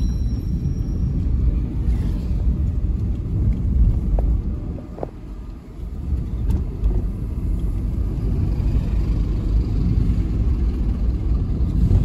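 Steady low rumble of a car's engine and tyres on the road, heard from inside the cabin while driving, easing off briefly about halfway through.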